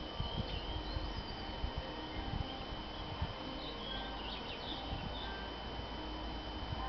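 Garden ambience: a few faint, brief bird chirps over an irregular low rumble with soft bumps, and a thin steady high tone throughout.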